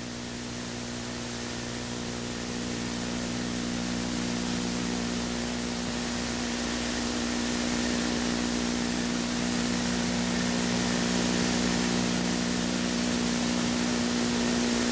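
Steady hiss with a low, even electrical hum and no other sound: the noise floor of a stretch of film that has no sound recorded on it.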